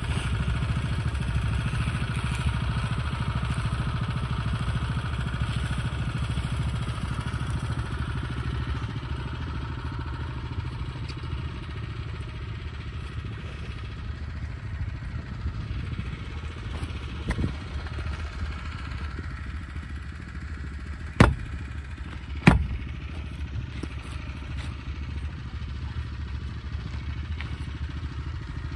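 A small engine running steadily at a low, even rumble, with two sharp knocks about a second apart near the end.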